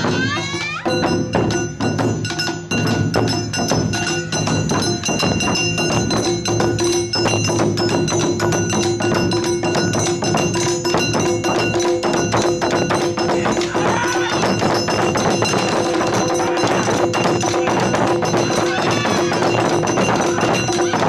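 Japanese festival drum ensemble playing: shoulder-slung barrel drums (okedo-daiko) and a small rope-tensioned shime-daiko struck with sticks in a fast, driving rhythm, with steady ringing metallic tones held over the beat.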